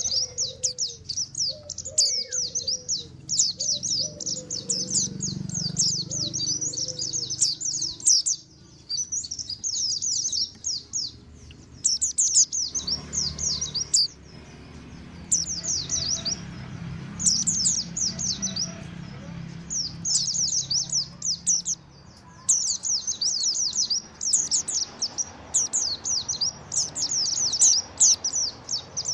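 Mountain white-eye (pleci montanus) song: busy, rapid, high-pitched twittering in repeated bursts of a second or two with short pauses between. This is the noisy ('ribut') song played as a trapping lure to draw wild white-eyes in and set other white-eyes singing.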